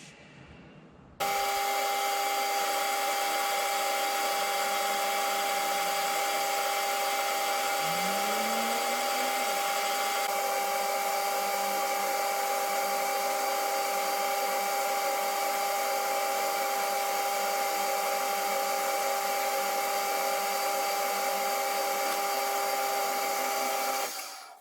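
Metal lathe running steadily with the rotating-base casting in its chuck: a loud hiss with a steady whine. It starts suddenly about a second in and cuts off near the end.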